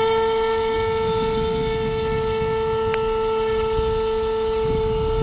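Electric motor and propeller of an AXN Clouds RC foam plane running at a steady high whine, held at power just before a hand launch. Wind rumbles on the microphone underneath.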